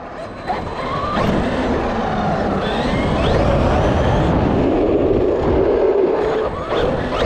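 Onboard sound of a Traxxas Maxx electric RC monster truck driving on concrete. The motor and drivetrain whine rises and falls in pitch with the throttle over a steady rush of tyre and road noise, with a brief drop in level right at the start and another near the end.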